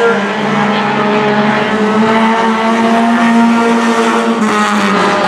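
Four-cylinder stock car engines running hard as two cars race close together on a short oval. The engine note climbs slightly, then eases off near the end.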